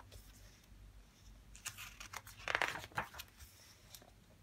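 Paper pages of a hardcover picture book being turned by hand: a run of quick paper rustles between about one and a half and three seconds in, loudest near the middle.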